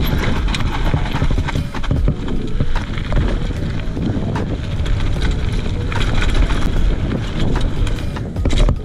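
Mountain bike riding down a dry dirt trail: knobby tyres rumbling over dirt and stones, with the bike's chain and frame rattling in many small, quick knocks.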